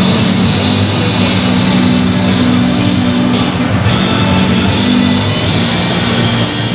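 Loud rock music playing steadily.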